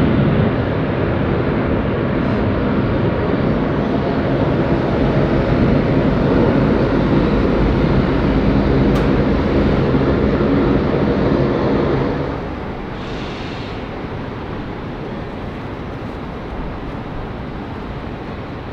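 Jet airliner engines at takeoff thrust, a loud steady roar with a low droning tone running through it; about twelve seconds in the level drops suddenly and a quieter, even engine rumble carries on.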